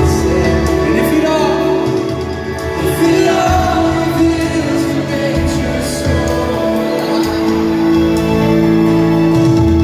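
Live worship band and singer performing a slow song in a large arena, heard from the crowd: held chords under a sung melody, with the bass changing every couple of seconds.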